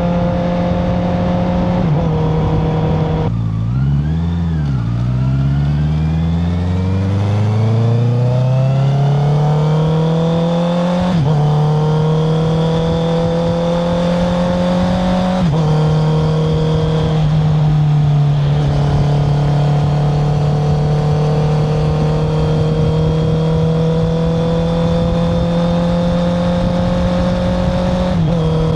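Honda CBR650R inline-four engine heard through an Akrapovic titanium exhaust while riding. The engine note drops about three seconds in, then climbs steadily under acceleration, with quick gear changes at about 11 and 15 seconds. It then holds a nearly steady cruising note.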